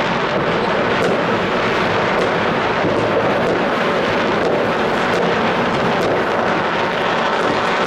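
Continuous rumble and crackle of many distant fireworks and firecrackers going off at once, merging into a steady din with faint single bangs scattered through it.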